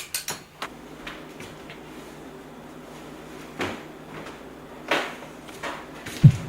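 A few scattered knocks and clicks, like things being handled or a door or drawer being moved. The loudest come about three and a half and five seconds in, with low thumps near the end.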